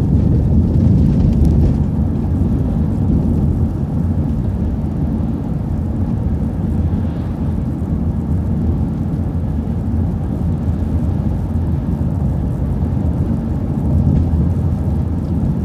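City transit bus driving along, heard from on board: a steady low rumble of engine and road noise that eases slightly partway through and picks up again near the end.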